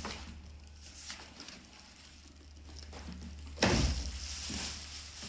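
Packaging being handled while a pressure washer is unboxed: faint rustling, then about three and a half seconds in a sudden, louder stretch of crinkling and scraping.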